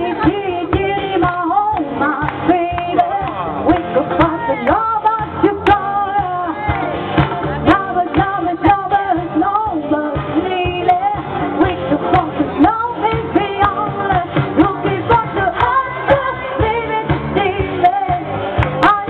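A woman singing into a microphone over amplified pop backing music with a steady beat.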